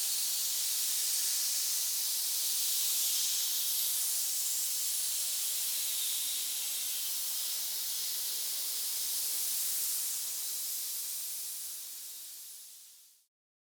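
Snake hissing: one long, steady hiss that fades away near the end and stops.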